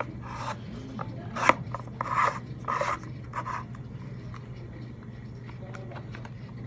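Handling noise: a series of short rubbing and scraping sounds, about half a dozen, over a steady low hum.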